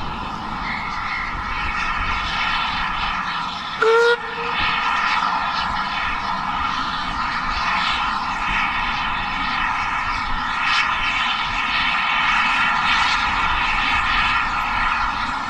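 Austerity 0-6-0 saddle-tank steam locomotive working a train up a steep gradient, a steady drone throughout, with one short, sharp whistle toot about four seconds in.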